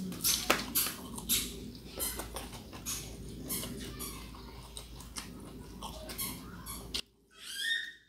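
Close-up eating sounds: wet lip smacks and chewing clicks as shrimp in sambal and rice are eaten by hand. Near the end the background hum cuts out and a brief high-pitched sound with a wavering pitch follows.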